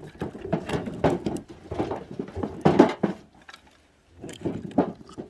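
Irregular knocks and clattering of objects being handled, in short clusters, with a brief pause about three and a half seconds in before a few more knocks.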